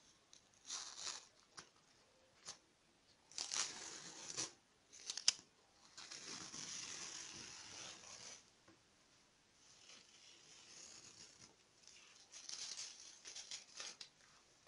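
Adhesive tape being peeled off a cloth towel in several separate pulls, the longest lasting about two seconds, with a sharp tick about five seconds in.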